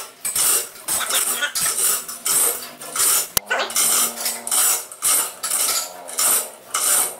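Repeated short metallic rasping strokes, about two a second, from a hand tool working on the tractor's steel steering housing.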